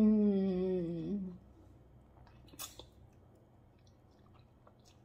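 A woman eating spicy noodles hums a long, loud "mmm" of enjoyment with her mouth full; its pitch slides down and it stops about a second and a half in. Soft chewing and mouth clicks follow, with a brief hissy slurp about two and a half seconds in.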